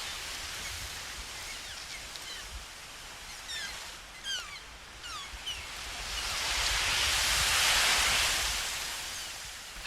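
Slow swells of rushing noise like surf, rising to a peak and fading, with a handful of short falling chirps in the middle. The sounds are made from plastic recovered from the ocean.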